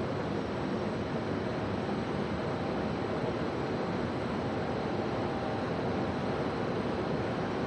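Steady, even rushing background noise of a large railway station, with no distinct events standing out.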